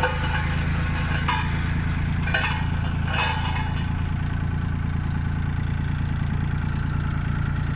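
Road roller's diesel engine running steadily at an even low pitch.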